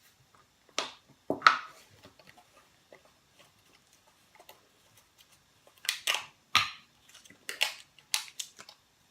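Short, sharp rustling and knocking handling sounds from kitchen containers as milk is added to pancake batter: two near the start, then four close together in the last few seconds.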